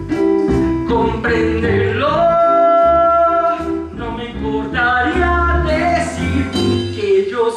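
A man singing a musical-theatre song, accompanied by a small live band with upright bass and keyboard.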